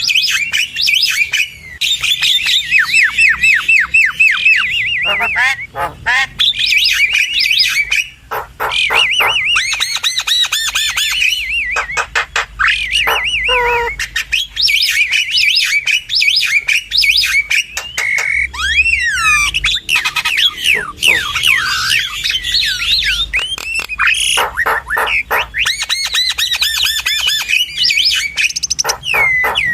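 Asian pied starling and Javan myna song: a dense, unbroken run of harsh chattering, squawks and fast trills, mixed with whistled notes that glide up and down in pitch.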